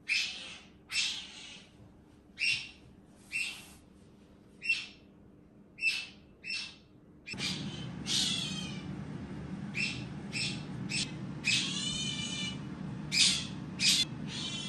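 Asian small-clawed otter chirping: short, high-pitched squeaks about once a second, a few of them longer, falling squeals. A low steady hum comes in about seven seconds in.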